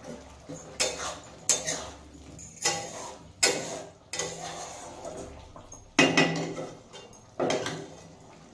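A spatula knocking and scraping against a metal kadai while stirring a simmering curry: about eight sharp, irregular clinks, each ringing briefly.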